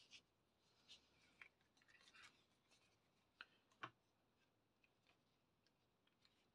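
Near silence, with a few faint ticks and rustles from paper being handled.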